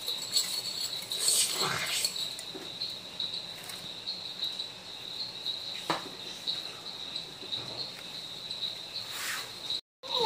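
Crickets chirping: a steady, high-pitched, evenly pulsing trill, with a few light clicks and scrapes of a wire whisk in a small bowl.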